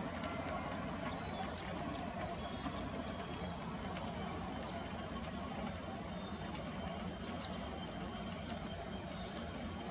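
Outdoor ambience: a steady low rumble like distant traffic, with a few faint high bird chirps in the second half.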